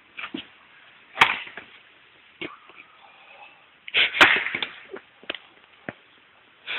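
An axe splitting a firewood log with a sharp crack about a second in, then a second loud crack of wood about three seconds later, with lighter knocks of wood between.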